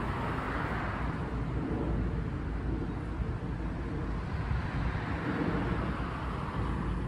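Steady low rumble of road traffic, with no goose calls standing out.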